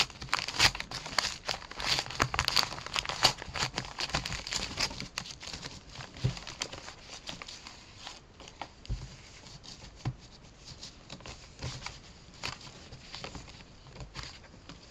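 A paper padded mailer and its packing being opened and handled, crinkling and rustling. The crinkling is dense for about the first six seconds, then thins to scattered rustles.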